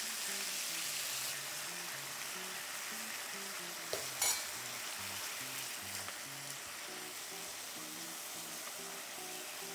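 Slices of pork loin sizzling steadily in a frying pan as they are glazed in eel kabayaki sauce, with two sharp clicks about four seconds in.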